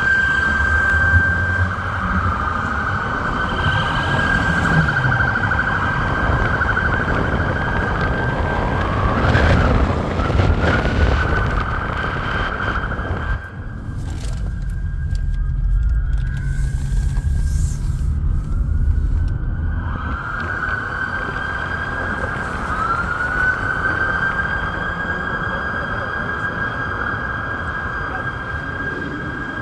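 A siren's high tone holds steady and several times sweeps back up to pitch, over the low rumble of car engines running.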